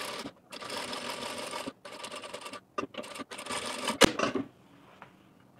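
Industrial lockstitch sewing machine stitching in several short runs, stopping and starting again between them. About four seconds in there is a sharp click, after which the machine stops.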